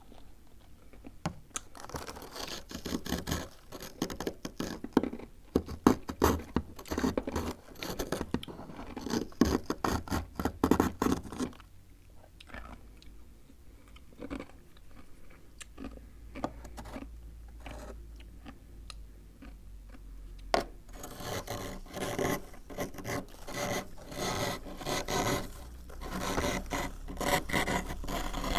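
Spoon scraping frost off the inside of a freezer in rapid strokes, in two long runs with a quieter stretch between them and a single sharp click just before the second run.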